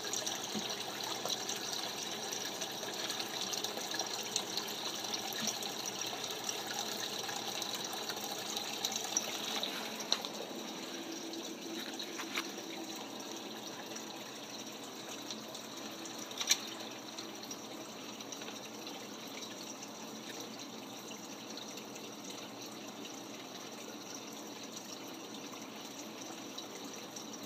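Steady trickling and splashing of water in a turtle's aquarium tank, a little quieter after about ten seconds, with a few sharp clicks.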